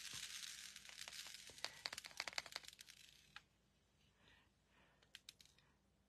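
Tiny beads clicking and rattling against a plastic tray as a glued card is pressed face down into them. A faint flurry of small clicks over the first three seconds, then a few scattered ticks.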